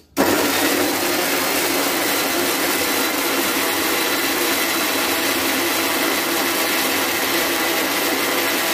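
Electric mixer grinder (mixie) switched on just after the start and running steadily at full speed, grinding peeled onions into a fine paste in its steel jar.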